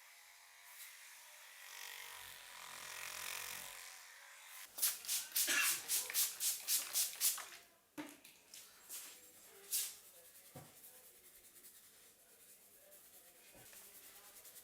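Hands massaging a head: soft rubbing on the hair and scalp, then a quick run of about ten slaps or taps at roughly four a second, then a few single sharp clicks.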